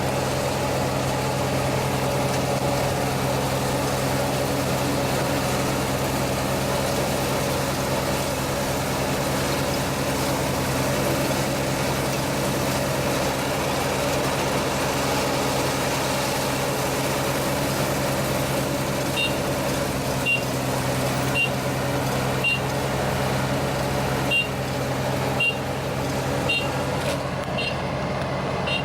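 ISEKI 325 rice harvester's engine running steadily with a low, even hum while harvesting. From about two-thirds in, a short high beep repeats about once a second.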